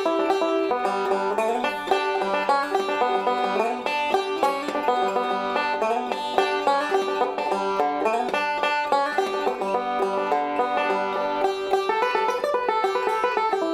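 Fender LEO resonator banjo with a Remo head being picked: a tune played as a steady run of quick plucked notes.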